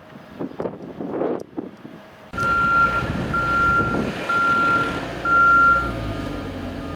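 Heavy construction vehicle reversing: its diesel engine cuts in suddenly about two seconds in, and its backup alarm beeps four times at one steady pitch, about one beep a second, over the engine rumble.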